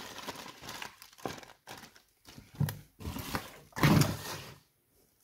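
Packaging being handled: a cardboard box and plastic wrapping crinkle and rustle, with a few soft knocks as boxes are moved and set down.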